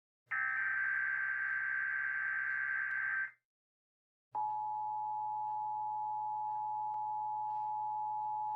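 An Emergency Alert System SAME header burst: a harsh, buzzing digital data screech about three seconds long that cuts off sharply. After a second of silence, the EAS two-tone attention signal (853 and 960 Hz together) starts and holds steady. This sequence opens a test tornado warning alert.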